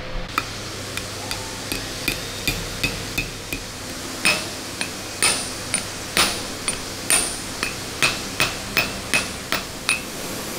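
Hammer tapping an oil seal into a WW2 Grant tank suspension housing. About two dozen metallic strikes land at roughly two to three a second, each with a short ring, and they get harder about four seconds in.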